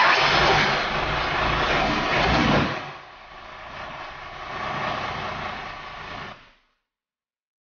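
Fire truck's engine and road noise heard from inside the moving cab. It is loud for the first two and a half seconds, then drops, and it cuts off abruptly about six and a half seconds in.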